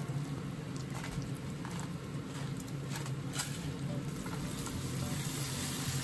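Pork jowl slices sizzling in hot oil in a frying pan, with a few light spatula clicks. About halfway through, vegetables are pushed into the pan with a spatula and the sizzling grows louder.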